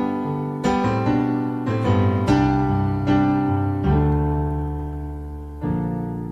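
Piano playing a slow passage of chords, each struck and left to fade before the next, with no voice.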